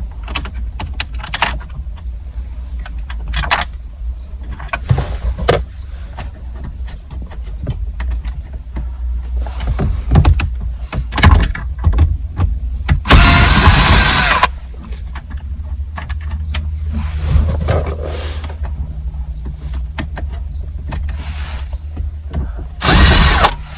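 Tools and plastic trim being handled during dashboard radio removal: scattered clicks and knocks over a steady low hum, with one louder noisy burst of about a second and a half just past halfway.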